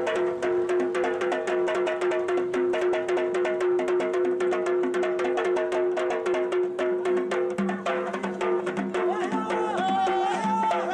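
Music with fast, evenly spaced clicking percussion over a steady held drone note; a wavering melody line comes in near the end.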